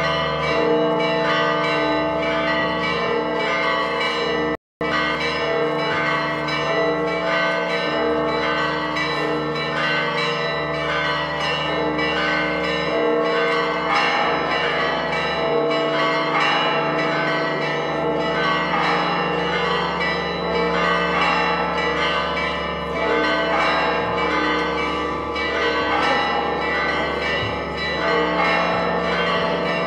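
A peal of church bells, many bells struck in quick, overlapping succession and ringing on steadily. The sound cuts out for an instant about five seconds in.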